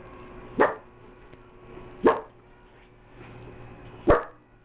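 Small dogs barking: three single sharp barks, spaced about one and a half to two seconds apart.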